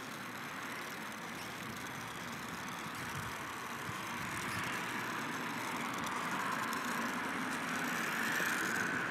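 Outdoor road traffic noise: a steady rushing that grows slowly louder over the seconds.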